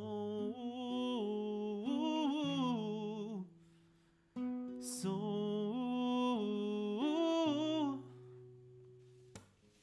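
A man humming a wordless melody in two phrases, held notes sliding between pitches, over a nylon-string classical guitar; the music fades away near the end.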